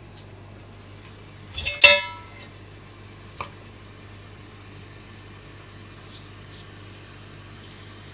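A single bright metallic clang about two seconds in, ringing with several pitches and dying away within half a second, over a steady low hum; a light tap follows about a second and a half later.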